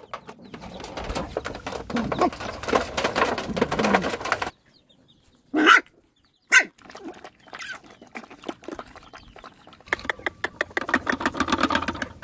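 Chickens clucking softly while puppies feed, with many small quick clicks of eating and lapping. There are two short, high calls near the middle, after a brief pause.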